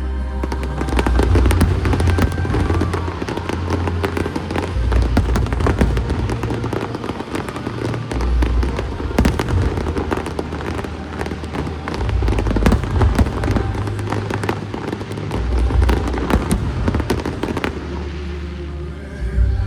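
Aerial fireworks crackling and popping in a dense rapid stream of many small reports, over loud music with a heavy bass line. The crackling thins out near the end.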